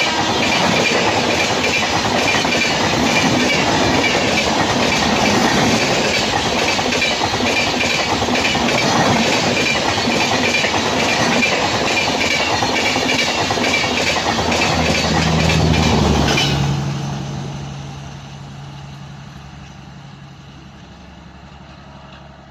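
Passenger express coaches rush past at speed, wheels clattering steadily over the rail joints. About sixteen seconds in, the last coach passes and the noise drops away suddenly, leaving a low rumble that fades.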